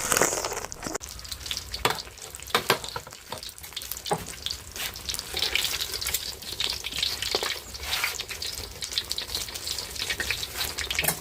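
Pork leg deep-frying in hot oil to make crispy pork leg, the oil sizzling with many sharp crackles and pops throughout.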